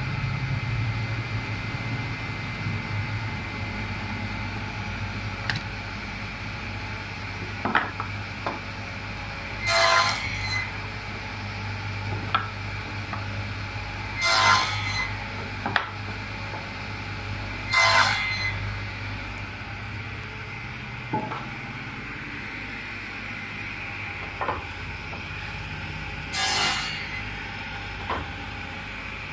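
Table saw running with a steady hum and high blade whine, cutting into a wooden board in about four short passes, each under a second. Between the cuts come a few short knocks of wood.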